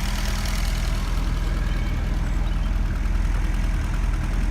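Ford Escort Mk5's engine idling steadily.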